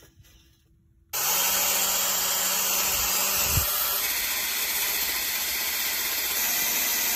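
Cordless drill starts up about a second in, spinning a cleaning wheel against the corroded, threaded end of an outboard propeller shaft. It makes a steady, loud scouring hiss over the drill motor's whine, and the whine fades out partway through while the hiss goes on.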